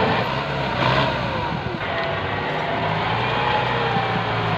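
Kubota tractor's diesel engine running under load: a steady low drone with a higher whine that wavers in pitch. The engine note changes abruptly about two seconds in.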